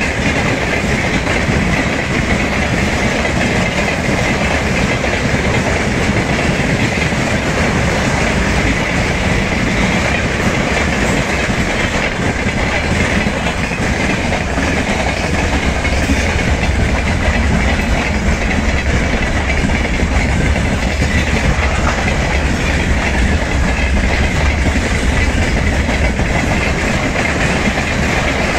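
Freight train of tank wagons and open wagons rolling past close by: a steady noise of wagon wheels running on the rails, with a low rumble that grows somewhat louder past the middle.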